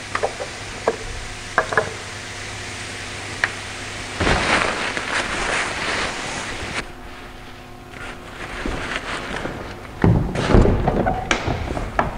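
Mercedes CLK 230 Kompressor's supercharged four-cylinder engine idling steadily just after an oil change, with a few sharp knocks and two stretches of rustling, clattering noise over it.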